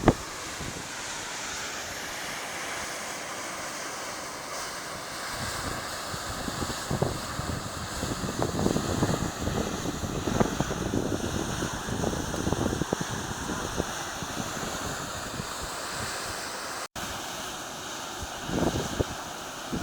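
Volcanic fumarole venting steam with a steady rushing hiss, mixed with gusts of wind buffeting the microphone. The sound drops out for an instant near the end.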